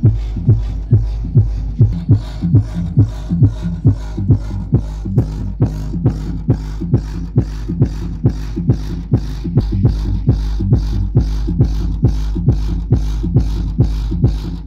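Bass-heavy dance music with a fast, steady kick-drum beat and deep sustained bass, played loud through 18-inch ATI Pro 1500-watt subwoofer cabinets during a sound check.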